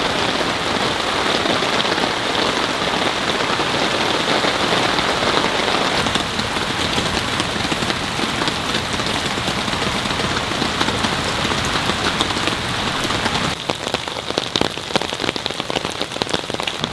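Heavy rain pouring down in a steady hiss. About thirteen seconds in it becomes a little quieter, with separate drops pattering sharply.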